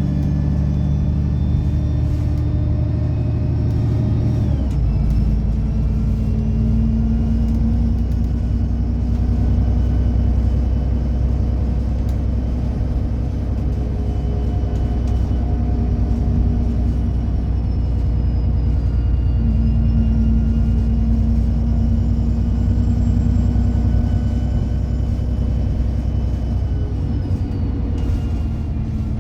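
Alexander Dennis Enviro 300 bus running under way: a steady engine rumble with a high whine that slowly rises and falls in pitch, and a change in the engine note about four and a half seconds in.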